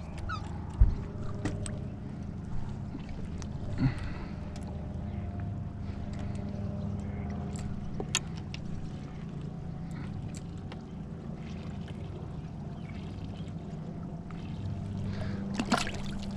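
Boat's outboard motor running steadily, with a few short knocks and clicks of handling on the boat, then a splash near the end as a small fish is dropped back into the lake.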